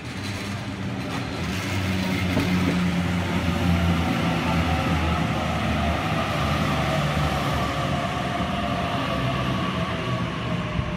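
Sydney Trains Waratah double-deck electric train running into the platform close by. A low rumble from the wheels on the rails with a steady electric motor whine above it, growing louder about two seconds in as the train draws level and staying loud as the cars pass.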